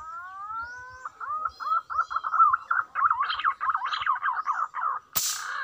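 Green pigeon's whistled song: a rising whistle, then a fast wavering run of notes. About five seconds in it is cut across by a single sharp rifle shot, and the whistling goes on briefly after.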